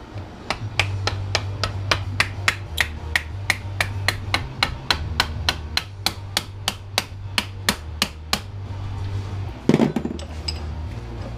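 Hammer striking the metal parts of a door knob in a fast, even series of blows, about three to four a second, then a heavier thud near the end followed by a few light metallic clinks.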